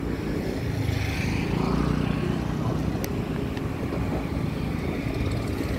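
Steady low rumble of motor vehicles running.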